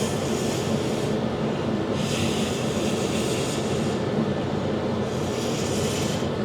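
Heat gun running steadily, a motor-and-fan hum with an airy hiss that swells and fades three times, blowing over wet resin to spread it into thin lacy wave cells.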